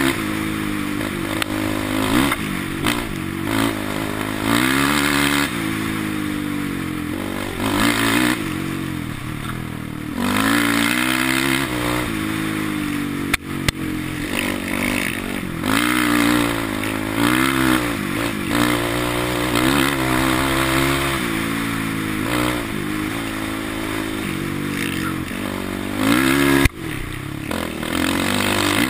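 Sport quad's single-cylinder engine revving up and down again and again as it is ridden hard over a dirt track, over a rush of wind on the helmet microphone. A couple of sharp knocks break in along the way.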